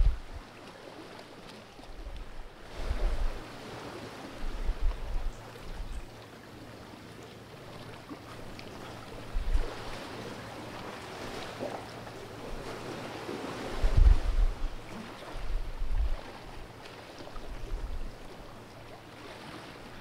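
Calm sea washing and lapping among the rocks of a narrow gully, swelling and easing. Gusts of wind buffet the microphone several times, the strongest about two-thirds of the way in.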